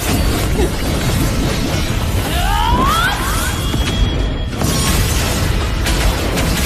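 Dramatic background music layered with fantasy spell sound effects: crashing, shattering impacts and a cluster of rising whooshing glides about two and a half seconds in.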